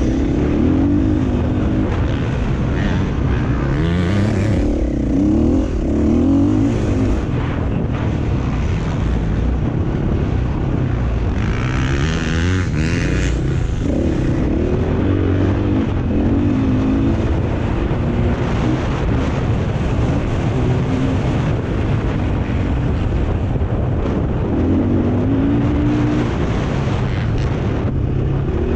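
Dirt bike engine running hard, its pitch repeatedly climbing and dropping as the throttle is worked and the gears change.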